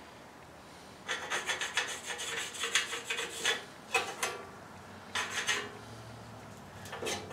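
A line being marked out on the sheet-steel firewall: quick scratchy rubbing strokes, a rapid run of them about a second in, then a few single strokes.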